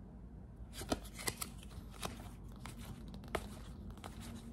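Cardstock trading cards being thumbed through one by one in the hands, giving faint, irregular clicks and slides as card edges flick past each other, over a steady low hum.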